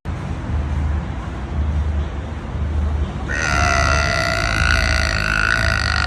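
A long, loud burp, with a steady high-pitched tone joining in about halfway through and lasting about three seconds.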